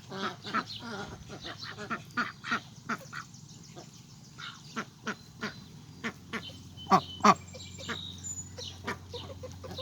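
Ducks quacking in short calls, with two louder quacks close together about seven seconds in.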